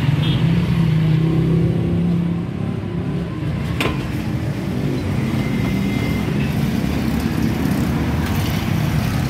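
Street traffic noise, with a nearby motor vehicle engine running loudest in the first couple of seconds. A single sharp click comes about four seconds in.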